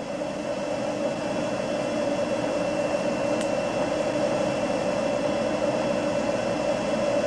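A steady machine hum, a constant mid-pitched drone with a faint high whine above it, like a fan or ventilation unit running.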